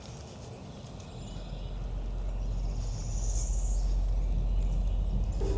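Outdoor field ambience with a low rumble on the microphone that grows louder from about a second in. A faint, brief high chirp comes near the middle.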